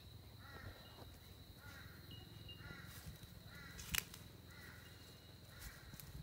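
Quiet outdoor ambience: a bird calling over and over, about once a second, over a steady faint high whine. One sharp click about four seconds in.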